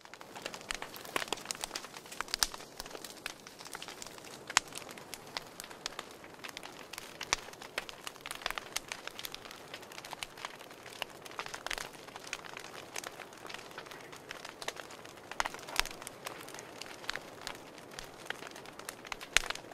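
Wood fire crackling in a wood stove: a steady run of irregular sharp pops and snaps.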